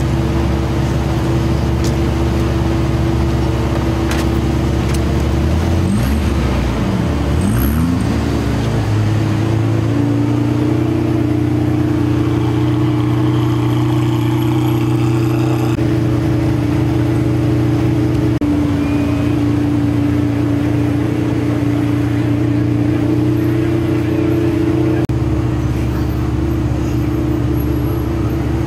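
McLaren F1's BMW V12 idling at low speed, a steady running note whose pitch wavers briefly about six to eight seconds in before settling.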